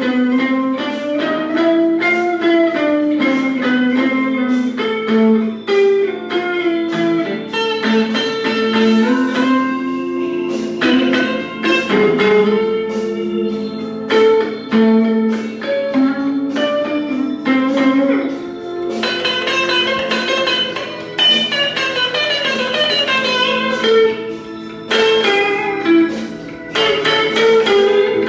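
Guitar improvising a blues solo: quick runs of plucked notes, with notes that slide and bend up and down in pitch.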